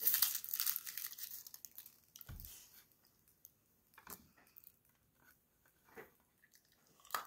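Crinkly candy wrapper being twisted open and torn off a wrapped caramel apple hard candy, busiest in the first two seconds. Then a soft thump and a few short rustles as the wrapper is picked at.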